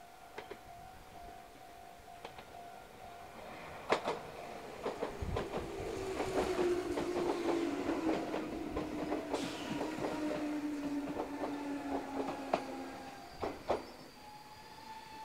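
Meitetsu 6800 series electric train pulling into the station. Its wheels clack over the rail joints as it runs past, and a whine falls slowly in pitch as it brakes. The sound builds from about four seconds in and dies away near the end as the train stops.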